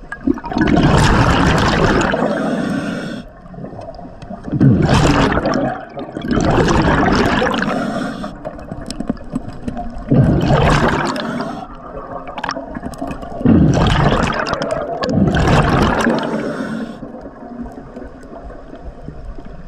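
Scuba diver breathing through a regulator underwater: a loud rush of exhaled bubbles and breath comes every few seconds, with quieter gaps between.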